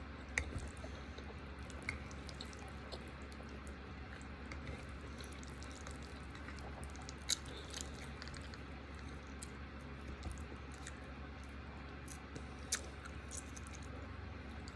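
Faint wet chewing and mouth sounds of someone eating creamy chicken Alfredo, with a few isolated sharp clicks, over a low steady hum.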